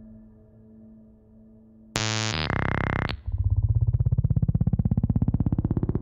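Electroacoustic music: faint sustained synthesized tones, then about two seconds in a sudden loud burst of harsh electronic noise that shifts abruptly, giving way just after three seconds to a fast-pulsing synthesized buzz that slowly rises in pitch.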